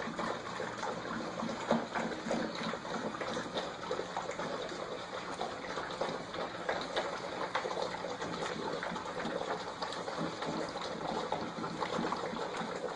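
A litter of Scottish terrier puppies lapping and slurping from a shared dish at the same time. Many small wet smacks and clicks overlap into a steady, busy sound.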